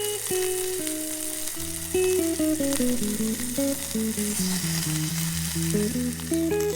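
Food sizzling and frying in a pan, a steady crackling hiss, under background music of plucked notes stepping down in a melody over a low drone.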